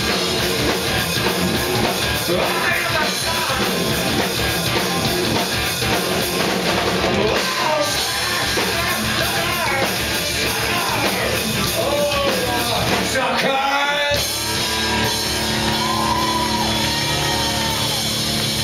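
Live rock band playing loud: electric guitars, bass and drums under a male lead singer. About two-thirds of the way through the low end drops out briefly, then the band comes back with held chords under the singing.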